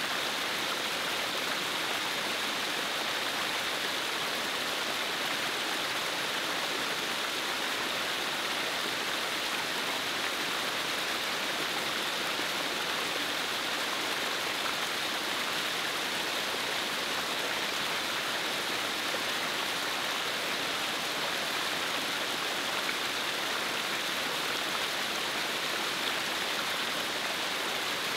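Steady rush of running water from a shallow stream flowing over rock.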